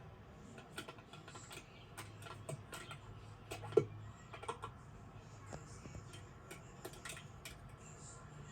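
A string of light, irregular clicks and taps, with one sharper, louder knock about four seconds in.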